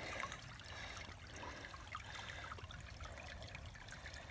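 Shallow creek water trickling over rocks, with small scattered ticks and splashes as a stone is shifted in the water.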